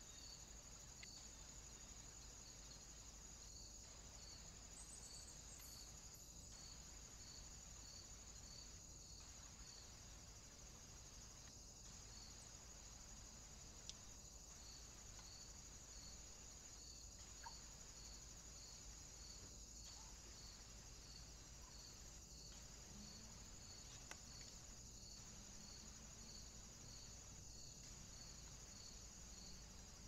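Faint, steady, high-pitched insect song, crickets or bush crickets, with a regular pulse about one and a half times a second, over low hiss. A few faint ticks come through.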